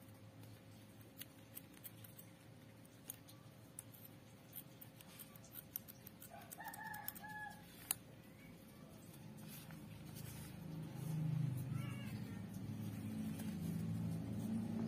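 Scissors snipping a thin rubber glove, a scatter of small clicks with one sharper snap about eight seconds in. A chicken calls in the background about halfway through, with a shorter call a few seconds later. A low rumble builds up over the last few seconds.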